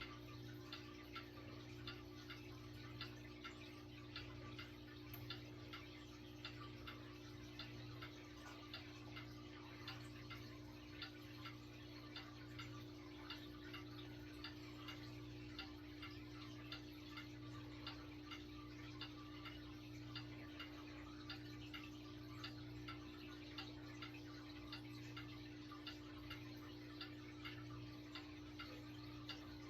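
Vintage Lakewood Country Aire box fan with a Westinghouse motor running on high: a steady hum with a quick, even ticking.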